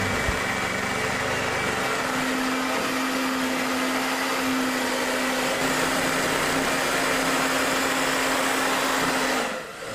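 Hair dryer blowing steadily with a faint hum, heating clear Crystal film to soften it before it is stretched over the table top; it switches off near the end.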